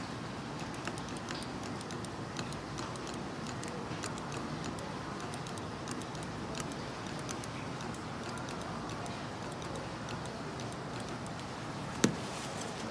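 Scattered light clicks and ticks at an irregular pace from spot welding screen mesh with a TPM spot welding machine's weld gun, over a steady background noise, with one sharp, loud click near the end.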